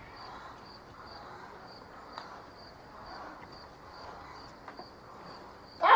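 Insect chirping, cricket-like, at one high pitch, evenly about two chirps a second.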